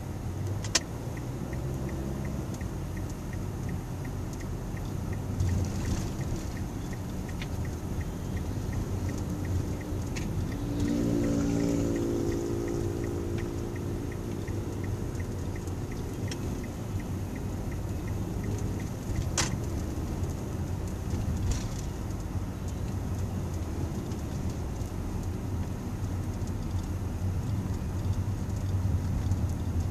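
Car's engine and road noise heard from inside the cabin while driving in city traffic, a steady low rumble. A light regular ticking runs through the first dozen seconds, a brief pitched hum comes about ten seconds in, and there are a couple of sharp knocks.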